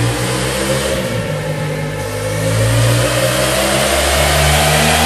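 Yamaha Ténéré 700's 689 cc parallel-twin engine heard through its stock exhaust, being revved. The revs ease off a little about two seconds in, then climb again and hold higher toward the end.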